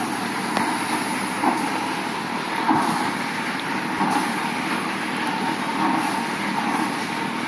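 Paddle steamer under way on the river, heard across the water: a steady rushing churn with faint swells about once a second from the paddle wheels beating the water.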